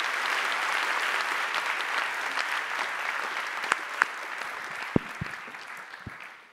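Audience applauding, the clapping dying away over the last couple of seconds, with a few low thumps near the end.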